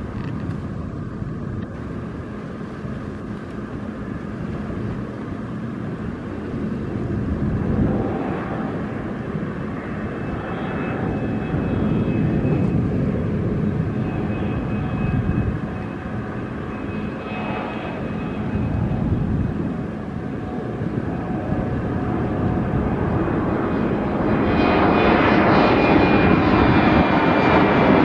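Liebherr P996 backhoe dredger's engine and hydraulics running with a steady drone and a faint whine, swelling and easing as the boom works, and louder over the last few seconds.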